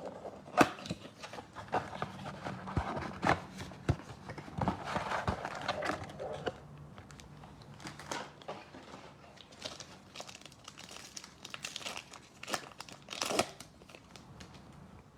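Foil trading card pack wrappers crinkling and tearing open, with cards and packaging being handled. The crinkling is busiest in the first half, with scattered sharper clicks and rustles after.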